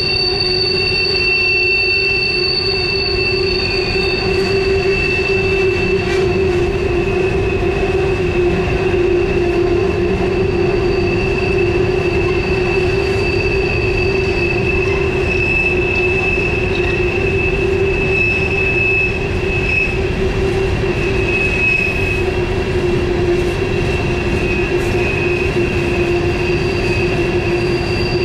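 Steel wheels of coal hopper cars squealing steadily against the rails as the train rolls through a tight curve, over a continuous rumble of wheels on track. The squeal is flange squeal from the sharp curve.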